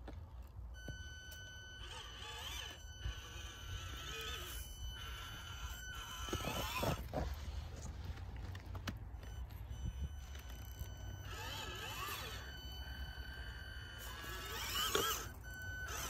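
Axial SCX24 micro RC crawler's small electric motor and gears whining in short bursts as the throttle is worked over rocks. The pitch rises and falls with motor speed, most strongly about halfway through and again near the end.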